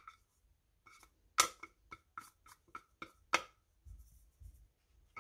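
About ten light, irregular taps and clinks of kitchenware against a glass mixing bowl, each with a short ring, as the last flour is scraped and knocked out of a small bowl with a spatula. A soft handling bump follows near the end.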